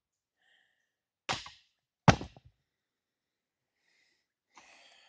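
Two short, forceful grunts or exhales of effort, a little over a second in and again under a second later, from a person straining to break loose a stuck flywheel bolt.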